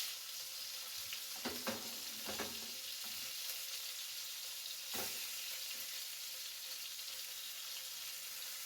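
Pollock frying in hot oil in a pan, a steady high sizzle, with a few light clicks between about one and two and a half seconds in and again around five seconds.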